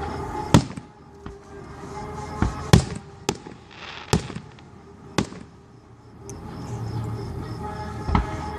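Aerial fireworks bursting as a string of sharp booms: several close together in the first five seconds, then a lull, then one more near the end. Music plays steadily underneath.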